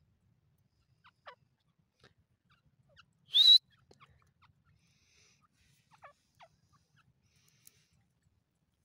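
Grey francolin (titar) giving one short, loud, harsh call that rises in pitch, about three and a half seconds in, with a few faint soft chirps before and after.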